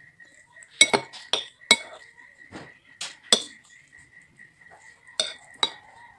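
Metal cutlery clinking and scraping against a ceramic bowl while scooping up noodles: about eight short, sharp clinks at irregular intervals.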